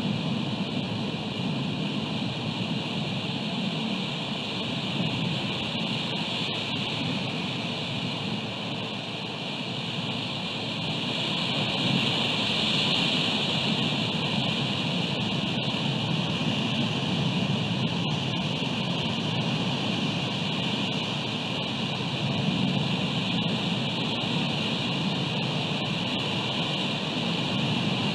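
Steady rushing noise of wind and ocean surf at an outdoor cliff-top camera microphone, a little louder about eleven seconds in, with a few faint ticks.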